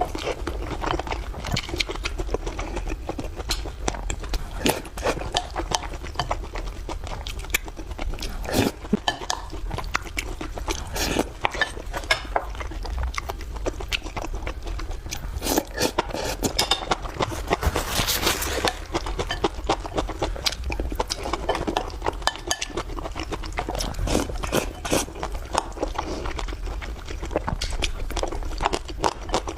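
Close-miked eating: a person chewing and smacking food with many quick wet clicks, and a longer noisy stretch about eighteen seconds in.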